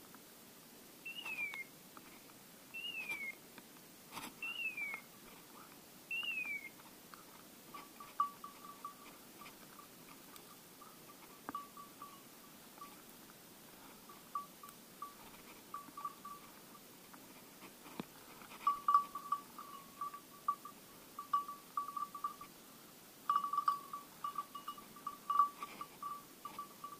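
The hunting setter's collar bell ringing in an irregular jingle as the dog works through the brush, the notes thickest and loudest in the second half. Early on, four short whistles falling in pitch sound about two seconds apart.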